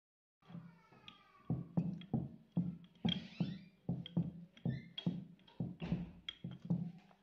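Background music with a steady beat, starting about half a second in.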